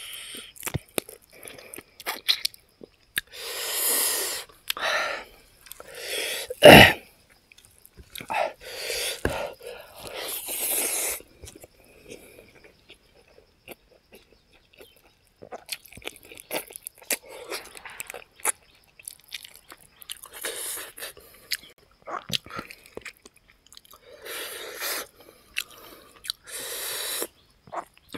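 Pork feet being chewed with wet lip-smacking, in bursts of a second or so separated by short pauses. The loudest is a sharper bite about seven seconds in.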